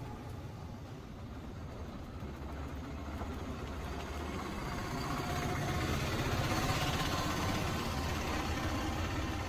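Street traffic: a motor vehicle's engine running, with road noise that swells and is loudest about seven seconds in.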